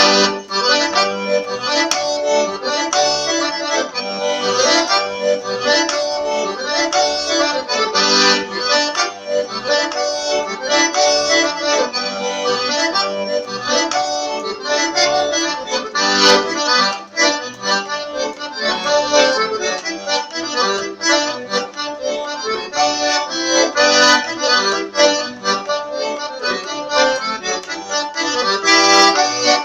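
Accordion (sanfona) playing a continuous tune, its melody notes changing quickly over sustained chords.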